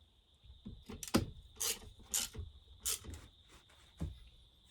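Hand tools and metal chainsaw parts being worked during reassembly: a run of short, irregular scraping rasps and knocks, loudest in the first half, consistent with screws being driven and tightened.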